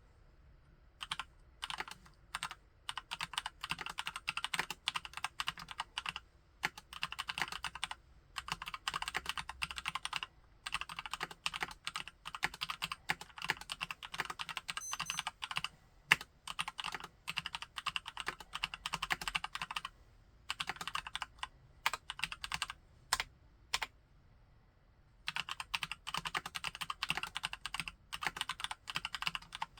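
Keychron C1 Retro tenkeyless mechanical keyboard with tactile Gateron Brown switches being typed on: quick runs of keystrokes lasting a few seconds each, broken by short pauses and a few lone key presses, with one sharper, louder stroke about halfway through.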